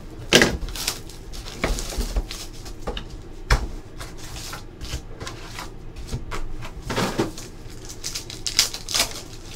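Foil trading card pack and its cardboard box, from a 2017 Panini Unparalleled football box, being handled and the pack torn open: irregular rustling and crinkling with scattered sharp crackles.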